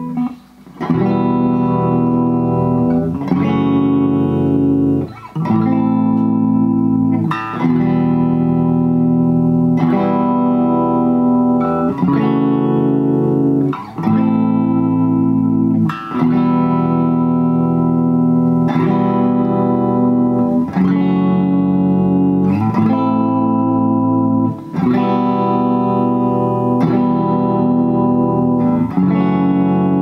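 Gibson Les Paul electric guitar played through an amplifier: a steady run of chords, changing about every two seconds, each ringing out with short breaks between some of them.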